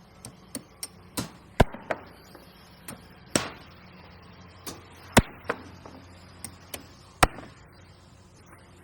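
Construction-site knocks and bangs: about a dozen sharp, irregular impacts like tools or materials being struck, the loudest about one and a half, five and seven seconds in, over a low steady hum.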